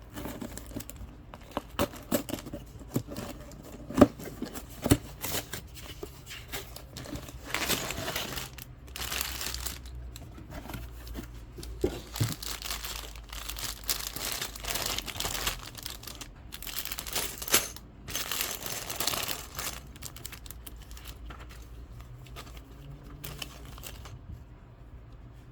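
A LEGO set being unboxed: a cardboard box torn open and plastic parts bags crinkling and rustling, with a few sharp taps in the first few seconds.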